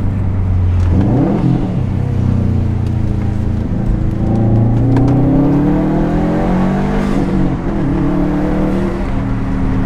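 Turbocharged Subaru flat-four engine with an aftermarket exhaust, idling and then blipped and revved several times while stationary. The pitch climbs and falls with each rev, and the longest rev comes near the middle.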